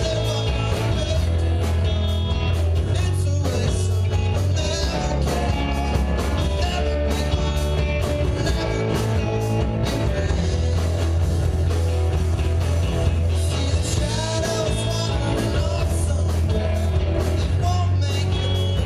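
Live rock band playing, with guitar, bass and drums keeping a steady beat.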